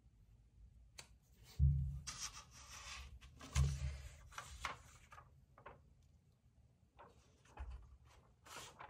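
Rustling and crackling of a plastic laminating pouch sheet as it is lifted and laid back over paper sheets, mostly in the first half, with a few soft thumps of hands and sheets on the desk mat.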